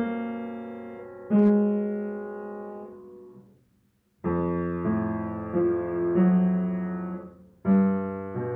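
Background music on solo piano: slow notes that ring and fade, breaking off to a brief silence about three and a half seconds in before the playing starts again.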